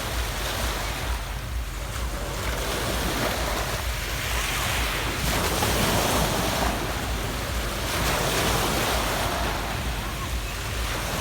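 Adriatic Sea waves washing onto a pebble beach, the surf swelling and easing every few seconds, with wind rumbling on the microphone.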